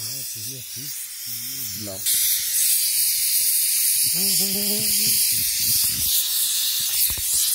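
Pressure cooker whistle letting off steam: a steady high hiss, much louder from about two seconds in. It is the sign that the dal inside has come up to pressure.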